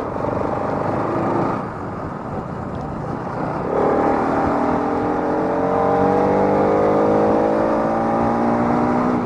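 Bajaj Pulsar RS200 motorcycle's single-cylinder engine pulling under throttle: about four seconds in it grows louder and its pitch climbs steadily for several seconds, then drops away at the end.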